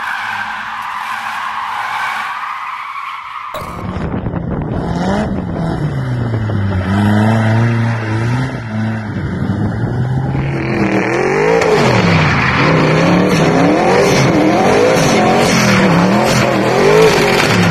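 Cars drifting: tyre squeal at first, then an engine revved up and down again and again, with continuous tyre screech under the revs through the second half.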